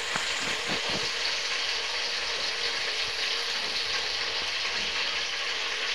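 Vegetables sizzling in a pot on a gas stove: a steady hiss, with a few light knocks in the first second.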